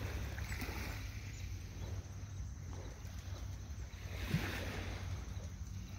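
Wind rumbling steadily on the microphone, with faint small waves lapping at the shoreline and a brief faint knock about four seconds in.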